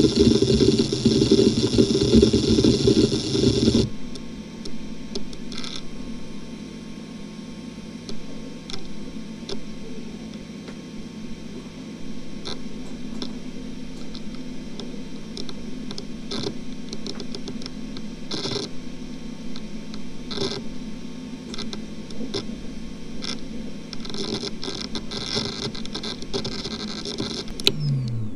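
Western Digital XE 300 GB 10,000 rpm 2.5-inch enterprise hard drive. For the first four seconds its heads seek rapidly and continuously under a benchmark's random-access test. After that the spindle whines steadily, with scattered seek clicks as files are accessed and a quick run of seeks near the end. In the last moment the spindle pitch starts falling as the drive spins down.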